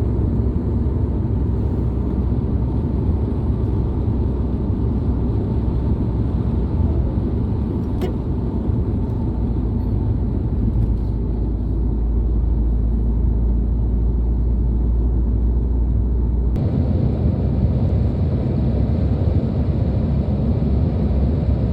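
A moving car: a steady, loud low rumble of engine and road noise, changing in tone about sixteen seconds in.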